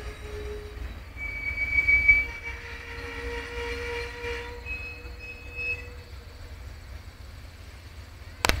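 Amtrak Superliner passenger cars rolling past, their steel wheels squealing in steady high-pitched tones that come and go over a low rumble, loudest about two seconds in and fading after about six seconds. A few sharp clicks near the end.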